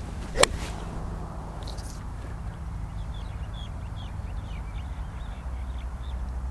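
A single sharp crack of a golf iron striking the ball about half a second in. Small birds chirp over a low, steady background rumble through the rest.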